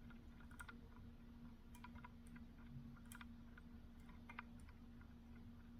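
Faint, irregular clicks of a slimline pick lifting and dropping the pins of a BiLock NG lock under tension, as the pins are cycled over and over. A faint steady hum sits underneath.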